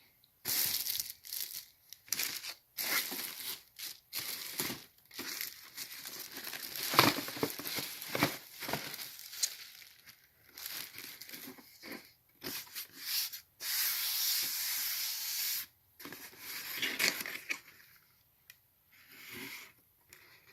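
Packaging being handled and opened: paper and cardboard tearing, rubbing and crinkling in irregular bursts, with one steady two-second tearing or rubbing noise about fourteen seconds in.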